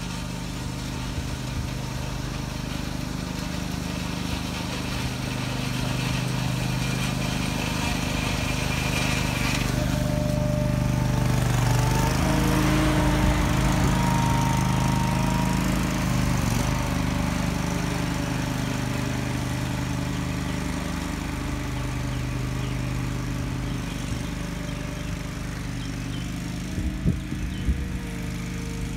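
John Deere 2500B ride-on greens mower running steadily, getting louder as it drives past close by about 12 to 15 seconds in, then easing off as it moves away. Two short knocks come near the end.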